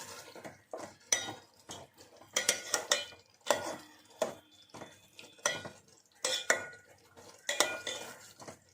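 A metal spoon stirring in a cooking pan, knocking and scraping against its sides and bottom in irregular strokes, about one or two a second, some with a short metallic ring.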